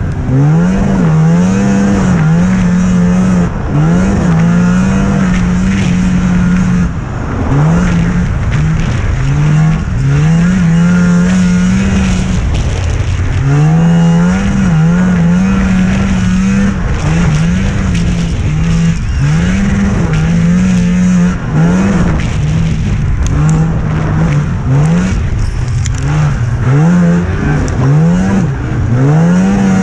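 Youth racing snowmobile's engine running hard at high revs. Its pitch drops and sweeps back up again and again, every second or two, as the throttle is chopped and reopened over the bumps and jumps of a snocross track.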